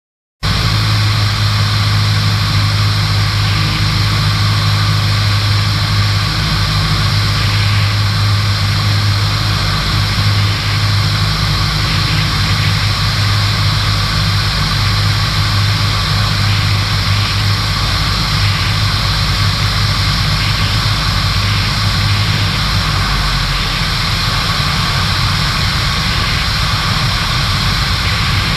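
Van's RV-7 light aircraft in flight, its piston engine and propeller giving a steady, loud drone, picked up from the tail-mounted GoPro. The low engine note drops slightly about two-thirds of the way through.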